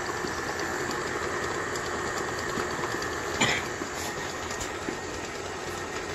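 KitchenAid Artisan stand mixer motor running steadily with a constant whine, beating creamed butter while flour is added. A single short knock about three and a half seconds in.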